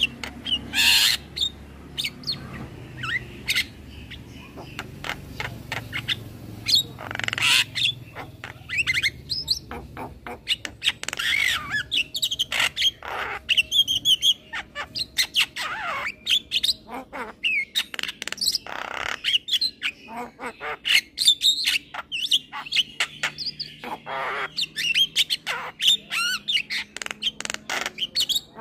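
Young male Javan myna calling: a long run of harsh squawks, clicks and short whistled notes, several a second, growing busier from about a third of the way in.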